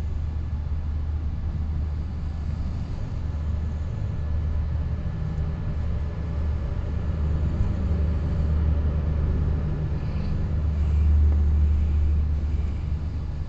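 Express passenger train in motion, heard from inside a coach at the window: a steady low rumble of the wheels and running gear, swelling louder for a while near the end.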